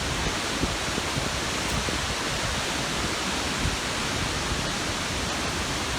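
Skógafoss waterfall's falling water, a steady, dense rush with no changes.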